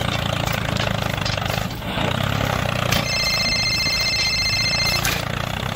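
Steady low engine drone of a mini tractor running. About three seconds in, a high electronic phone ringtone sounds for about two seconds.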